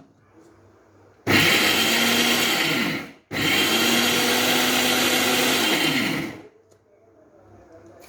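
Electric mixer grinder run in two short pulses, about two and three seconds long, its motor spinning up and winding down each time as it grinds soaked dal coarsely.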